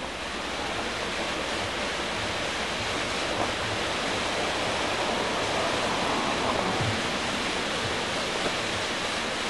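Steady rushing of water, an even wash of noise that holds at one level.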